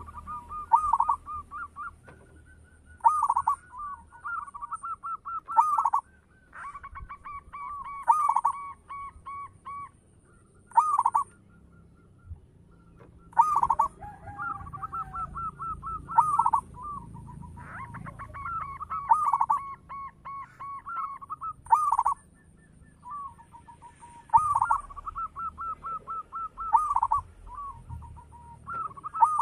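Zebra dove (perkutut) cooing its song: a short phrase of quick staccato coos repeated every two to three seconds.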